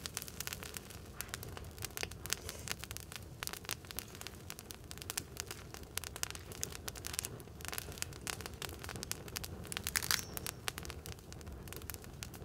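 Wood campfire crackling, with many small irregular pops and a sharper burst of crackles about ten seconds in.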